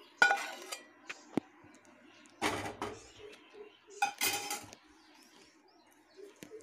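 Several short clatters and scrapes of metal utensils against pots and a kadai, spread over a few seconds, over a faint steady hum.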